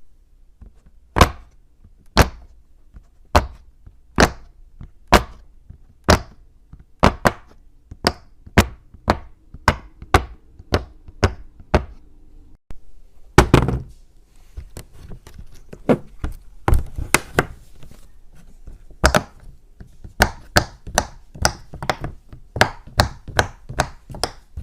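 A long series of sharp, loud pops or snaps, several dozen in all. They come about one a second at first and grow quicker, two or three a second, in the second half.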